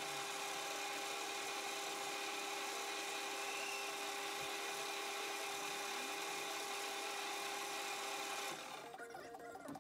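Hafco AL320G metal lathe running with a steady whine as a high-speed steel chamfer tool cuts a relief groove for the end of a thread in the spinning stud. The machine sound cuts off suddenly about eight and a half seconds in, and quieter plucked-string music follows.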